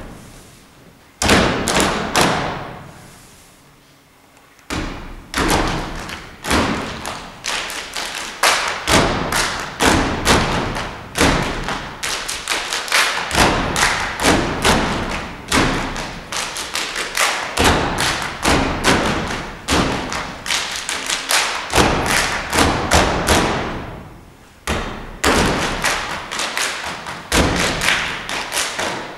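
Stomp-style body percussion by a dance troupe: unison foot stomps on a stage floor with hand claps and slaps. Two heavy stomps near the start each ring out, then after a pause of a couple of seconds a fast, steady rhythm of stomps and claps runs on, with a brief break near the end.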